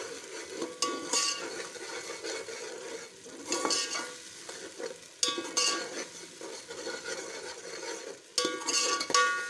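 Onion and spice masala frying in oil in a metal pot, sizzling steadily while a spatula stirs it. Four louder scrapes of the spatula against the pot bottom come every two to four seconds. This is the bhunai, the slow frying of the masala base after the dry spices go in.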